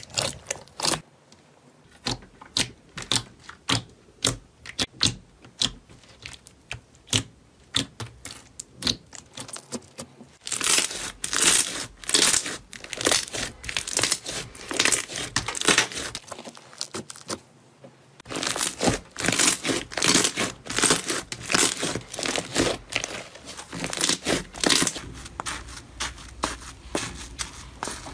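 Slime squeezed, kneaded and stretched by hand, making sticky clicks and pops. These come sparsely at first, then turn to dense crackling from about ten seconds in, with a short lull near the middle.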